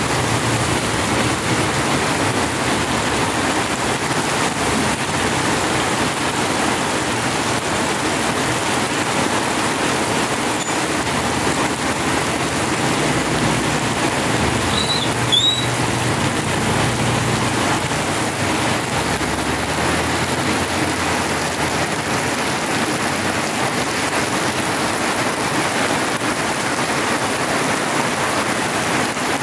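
Heavy tropical rain pouring onto a wet, flooded road, a steady hiss, with the low hum of passing motor scooters at times. About halfway through there is a brief high double squeak.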